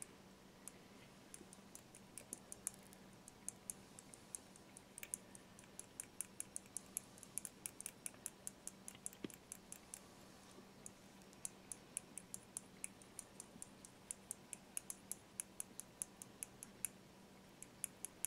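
A thin glass stirring rod ticking against the inside of a small glass beaker as a green-tinted mix is stirred: faint, irregular little clicks, a few a second, that thicken after the first couple of seconds.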